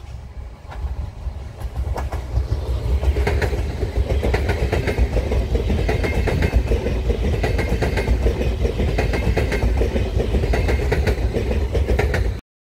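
Stadler KISS double-deck electric multiple unit (MÁV class 815) passing at speed: a heavy rumble with the wheels clattering over the rail in repeating groups as each bogie goes by. It builds over the first couple of seconds and cuts off suddenly near the end.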